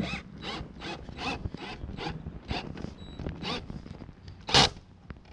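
Cordless DeWalt drill driving screws into a plastic pool-skimmer faceplate, a rasping whirr coming in short pulses about two and a half a second, with one louder burst about four and a half seconds in.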